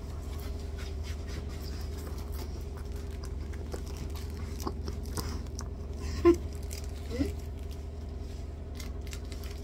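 Faint scratching and rustling of fabric rubbing on a phone microphone held against a fleece jacket, over a steady low hum. One short louder knock or sound about six seconds in.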